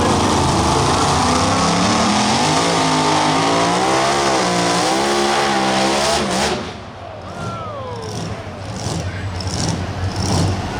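A pulling vehicle's engine at full throttle, its pitch wavering up and down under load, cuts off abruptly about six seconds in. A falling whine follows, then lower scattered noise.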